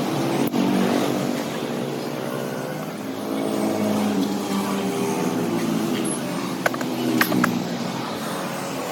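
Motorcycle engine revving, its pitch rising and falling repeatedly, with a few sharp clicks near the end.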